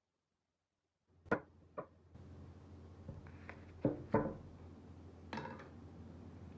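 After about a second of silence, a low steady hum begins. Over it come five sharp knocks and clicks, the loudest two close together just before the middle, as of hard objects handled on a workbench.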